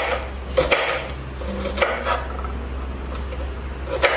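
Kitchen knife dicing a red onion on a wooden cutting board: a few separate knife strikes on the board, unevenly spaced, with a quieter gap of about two seconds before another strike near the end.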